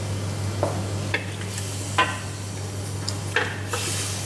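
Wooden spatula stirring chicken pieces in a creamy coconut sauce in a steel wok. It scrapes and knocks against the metal a handful of times over a light sizzle and a steady low hum.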